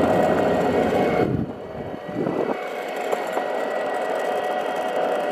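Boosted Board electric skateboard riding on asphalt: the wheels rolling on the road with a steady whir and faint steady tones, heavier low rumble in the first second and a half, then a little quieter.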